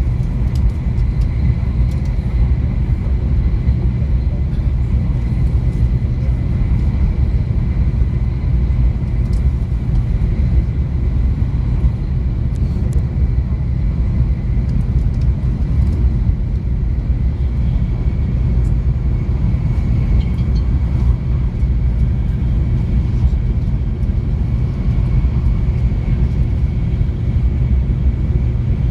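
Steady low rumble of a vehicle in motion, with a faint steady high tone above it.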